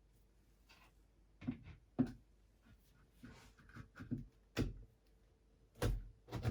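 Flat-pack chest-of-drawers parts being handled and fitted together: irregular knocks and clicks of wooden panels and fittings, several sharper knocks spread through, the loudest near the end.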